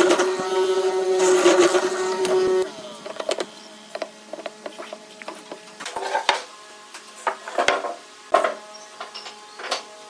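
An electric power tool motor runs at a steady pitch, then switches off about two and a half seconds in and winds down. After that come a few scattered knocks of wood being handled over quiet background music.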